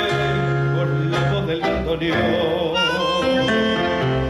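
A live tango orchestra playing, with violins and piano, while a male singer sings over it with vibrato.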